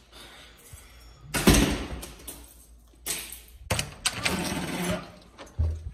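A room door being opened and shut, with a few loud rustles and knocks and a low thump near the end.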